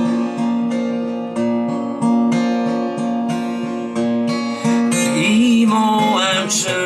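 Acoustic guitar strummed in steady chords through an amp set with delay and reverb.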